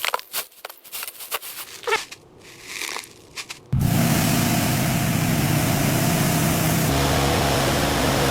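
A few clicks and knocks, then about four seconds in a car engine suddenly starts running loud and steady, with a strong hiss over it.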